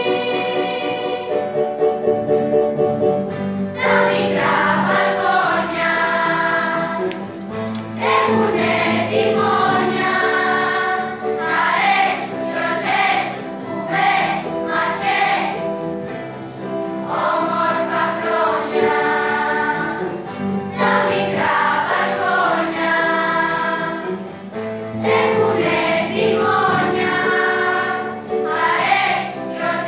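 A school children's choir singing a song together, phrase after phrase with short breaks between the lines.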